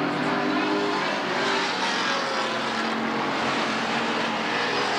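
Several stock car engines running together as a pack laps the track at speed, a continuous drone of overlapping engine notes that rise and fall a little.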